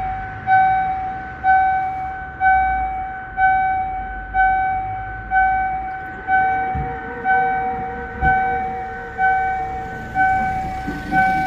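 Railway level-crossing warning bell ringing about once a second, each stroke a pitched electronic ding that rings out and fades, warning of an approaching train. A fainter steady hum sounds under it for a few seconds past the middle.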